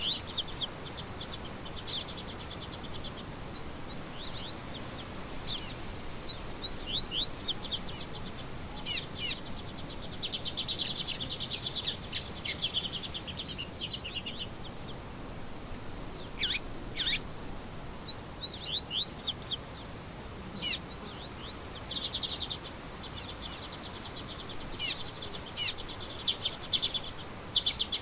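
Songbirds singing: a busy run of short chirps and quick sweeping whistles, broken by fast buzzy trills, with several sharp high notes standing out.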